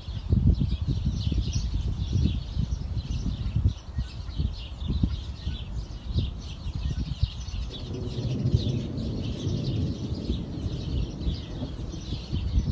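Gusty wind buffeting the microphone, with many birds chirping rapidly and continuously above it. The wind noise grows fuller and steadier about two-thirds of the way through.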